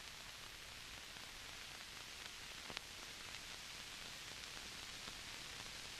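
Faint, steady hiss from an old film soundtrack, with one faint click a little before three seconds in.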